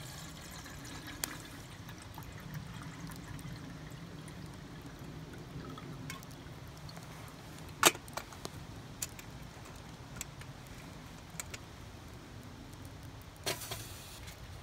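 Water poured from a steel bottle into a small metal kettle, then a sharp metal click about halfway through as the kettle lid is fitted, a few light ticks, and a metal clatter near the end as the kettle is set on a small wood-burning stove.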